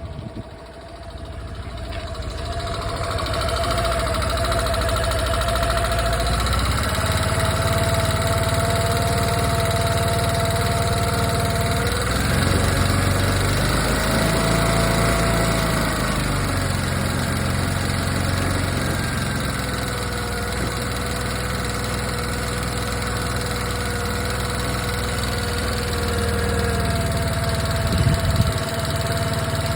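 Suzuki Address 125 scooter's single-cylinder engine running at idle on a new scooter, with a thin whining tone over the engine note. The whine shifts in pitch a few times and swells briefly in the middle. The owner takes this engine noise for abnormal.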